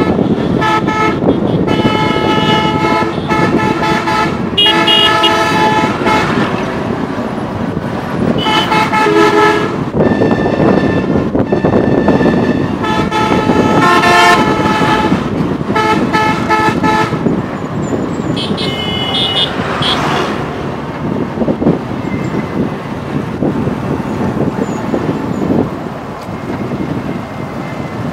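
Vehicle horns in highway traffic, honking in many short blasts one after another over a steady rumble of road and wind noise. A higher, shriller horn sounds once at about 19 s. After that the honking stops and only the road noise carries on.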